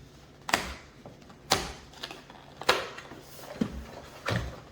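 Five sharp clacks and knocks, about one a second, from hard items being handled as a keyboard's storage case is opened.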